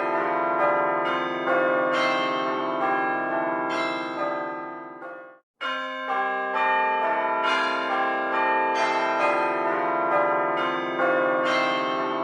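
Bells ringing a run of overlapping notes, a new strike about every half second. The ringing cuts off abruptly about five and a half seconds in, then starts again.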